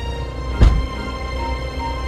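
Background music with held notes and one deep, sudden drum hit about half a second in.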